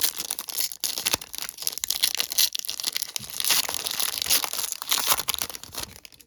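A foil trading-card pack wrapper being torn open and crinkled: dense crackling that stops just before the end.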